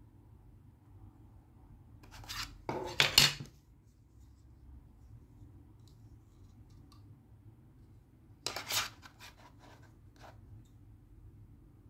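Hard plastic casing of a Doorsafe 4300 door intercom's outdoor unit being pulled apart and fitted back together by hand: two short bouts of scraping and clicking, the louder a few seconds in, a shorter one about two-thirds through, with a few light ticks after it.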